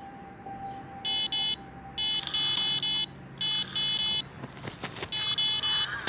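An electronic carp bite alarm sounds in four buzzing bursts as a fish takes line: a run. A few knocks and clicks come just before the last burst.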